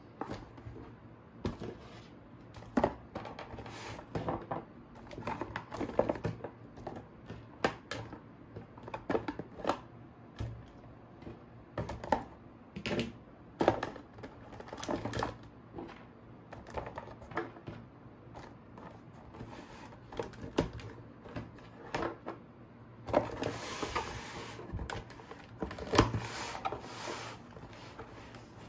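Plastic toy animal figures knocking and clattering against one another as they are put into a box full of figures: irregular sharp clicks and knocks about every second, with a longer rattle of figures shifting a few seconds before the end.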